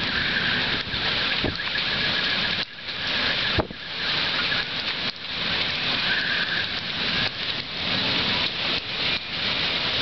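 Heavy thunderstorm rain and gusting wind: a loud, dense hiss that rises and falls with the gusts, broken by a few sharp knocks.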